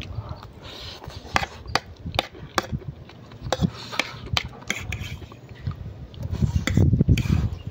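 A person eating instant noodles with a metal fork: scattered sharp clicks and scrapes of the fork against the plate, with chewing and slurping. A louder slurp of noodles comes about six seconds in.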